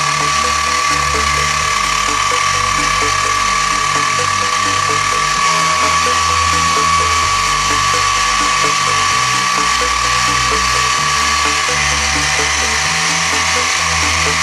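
Sieg X2 mini mill converted to CNC, cutting: the spindle gives a steady whine over the fine rattle of the end mill in the workpiece. Lower tones shift every second or so as the machine runs its program.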